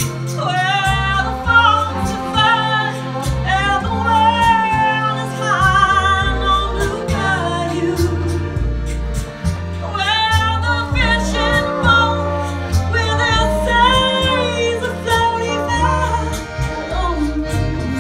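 Live small jazz band: a woman sings the lead with a wavering vibrato over an upright bass stepping from note to note, with accordion and horns (trombone, saxophone) playing along and faint regular ticks keeping the beat.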